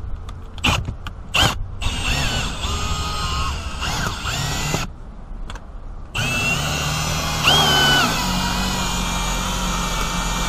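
Cordless drill driving a Ring Cut windshield cut-out winder, reeling in the cutting line that slices through the bonding to free the windshield. The drill runs in two stretches with a pause of about a second near the middle, its pitch shifting under load and briefly higher near 8 s. Two sharp clicks come before it starts.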